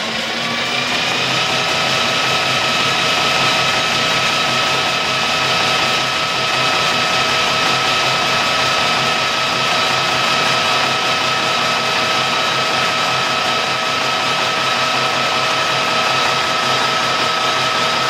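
Metal lathe running with a steady gear whine while a homebrew high-speed steel tool takes a turning cut along a metal bar, peeling off curling swarf. The whine rises in pitch over the first second or so as the spindle comes up to speed, then holds steady.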